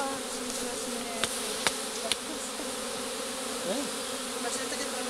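A swarm of honeybees flying in the air, a steady, dense hum of many wings, while the swarm is being hived. A few brief clicks sound about a second to two seconds in.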